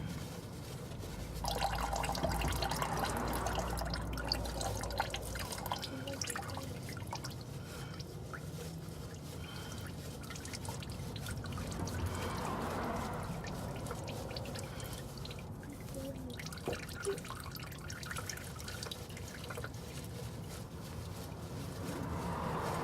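Engine oil dripping and trickling during an oil change, with occasional small clicks.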